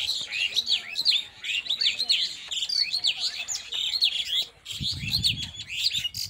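Many small birds chirping, with short, sharp calls overlapping thickly and without pause. A brief low rumble comes about five seconds in.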